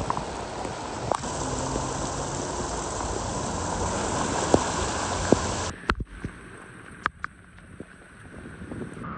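Heavy rain and rushing floodwater, a steady wash of water noise. A little over halfway through it cuts to a quieter rain hiss with a few sharp taps.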